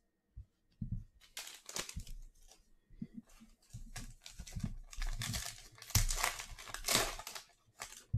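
Foil wrapper of a Panini Chronicles basketball card pack crinkling and tearing as it is picked up and ripped open, in irregular crackling bursts, loudest about six to seven seconds in.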